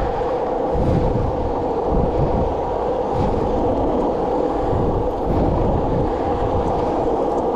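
Wind buffeting the microphone over the steady roll of skateboard wheels on an asphalt path.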